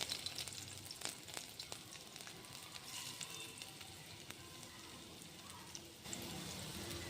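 Potatoes and fenugreek leaves frying in hot oil in a pan: a steady sizzle with many small crackling pops, a little louder from about six seconds in.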